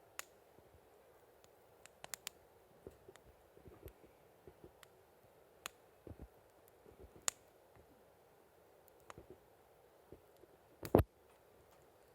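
Cherry-wood campfire crackling: scattered sharp pops and snaps over a faint steady rush of burning, with the loudest pop near the end.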